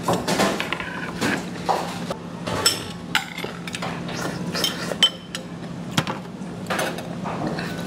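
Metal spoon and chopsticks clinking against bowls and dishes while eating, many small separate clinks, one ringing more sharply about five seconds in, over a steady low hum.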